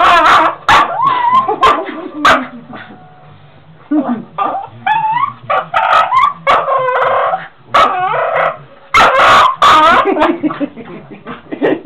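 A small white dog "singing": a run of yips and wavering, whining howls that slide up and down in pitch, broken by a pause of about a second and a half near the third second.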